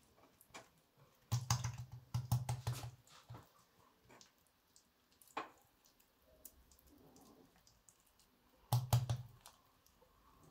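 Soft clicks and taps of hands rolling up and pressing a strip of msemen dough on a countertop. They come in two short clusters, one about a second in and another near the end.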